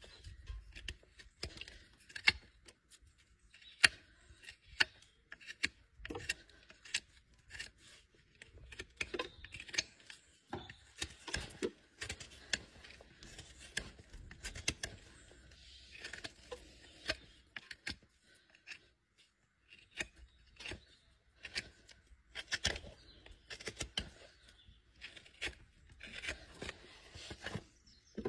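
Hoof knife paring the sole of a horse's hoof: short, irregular scraping cuts, separated by brief pauses.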